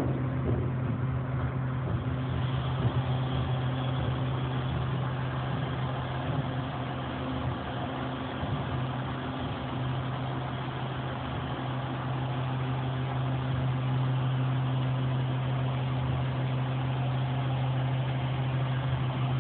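Diesel engine of a Crane Carrier refuse truck running steadily with a constant low hum. It is driving the Heil 5000 rear loader's hydraulics while the raised tailgate lowers and closes.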